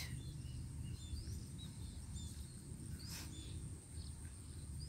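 Faint rural ambience: a steady high insect drone with scattered short bird chirps over a low background rumble, and one brief rustle about three seconds in.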